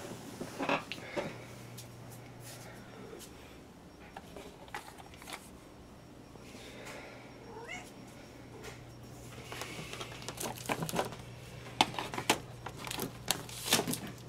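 A house cat meows, one rising call about seven seconds in, among clicks and knocks of things being handled that grow busier near the end. A steady low hum lies underneath.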